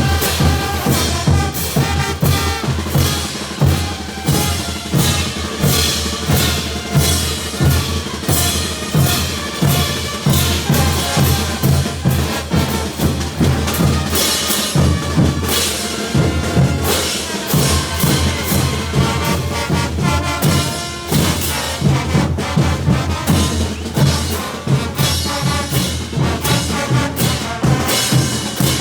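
Brass band playing a caporales: trumpets and trombones over drums with a steady, driving beat.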